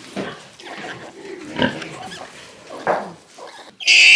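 Newborn piglets grunting and squeaking while they jostle at the sow's teats. Near the end a piglet, the noisy runt of the litter, lets out a loud, sustained high-pitched squeal.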